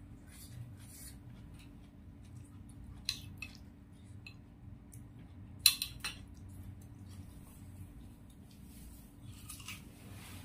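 Close-up eating sounds: a spoon clicks against a plate, most sharply about three and five and a half seconds in, between quieter chewing and mouth noises. Near the end comes a crisp bite into a raw green vegetable.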